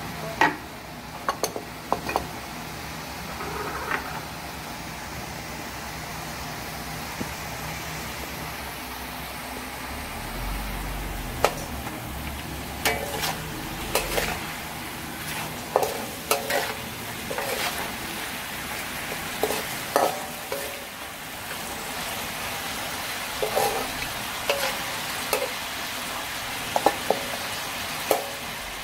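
Chicken livers sizzling in a wok while a spatula stirs them, scraping and clinking against the metal pan every few seconds.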